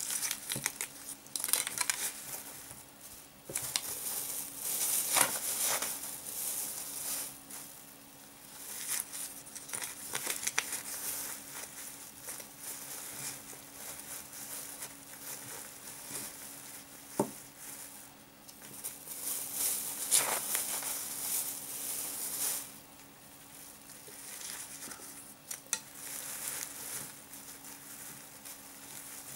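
Plastic bags and a PVA film bag crinkling and rustling under the hands, with the patter of crushed red and black pepper being spooned into the PVA bag, in irregular bursts of a second or two. A faint steady hum lies underneath.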